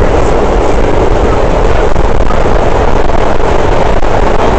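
Vintage R1/9 subway train running, heard from inside the car: a loud, steady rumble that holds even throughout.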